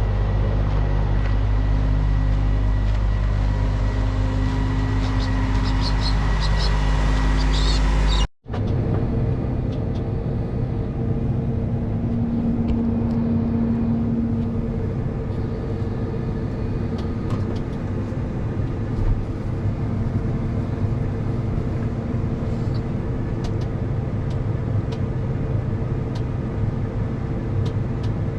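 Diesel engine of heavy harvest machinery running steadily. About eight seconds in the sound cuts out for a moment and another steady engine takes over.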